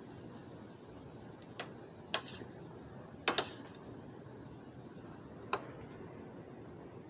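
Metal fork and spoon clicking against a metal food tray while scooping noodles: about five sharp clicks, two of them close together near the middle, over a steady low hiss.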